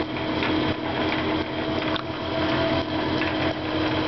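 1947 South Bend Model 9A metal lathe running slowly under its three-phase motor and variable frequency drive, with the power longitudinal feed engaged: a steady mechanical hum holding a couple of steady tones over an evenly pulsing low rumble.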